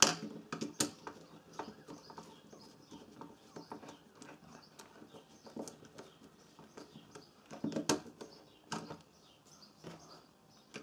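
Scattered clicks, taps and knocks of hand work on a plastic thermal overload relay: multimeter probe leads and a screwdriver handled against the relay and a wooden bench. The sharpest knocks come right at the start and about eight seconds in.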